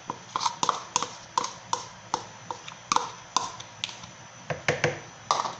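Light, irregular taps and clicks against a stand mixer's bowl as egg yolks are added by hand, about two or three a second, with a couple of duller knocks near the end.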